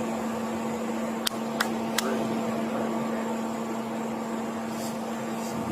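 A steady mechanical hum over even background noise, with three sharp clicks in quick succession between one and two seconds in.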